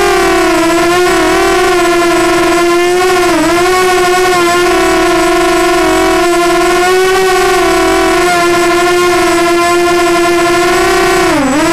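Walkera Runner 250 Advance quadcopter's brushless motors and propellers whining, heard from on board. The pitch holds steady, with small wobbles, and dips sharply twice, about three seconds in and again near the end, as the throttle eases off and comes back.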